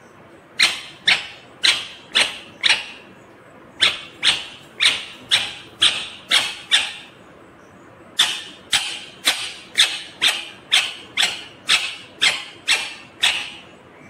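Indian ringneck parakeet squawking: short, shrill, loud calls about two a second, in three bouts with brief pauses between them.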